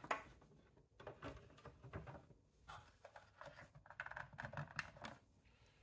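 Hard plastic TMNT News Van toy being handled: faint, scattered clicks and taps of plastic parts under the fingers.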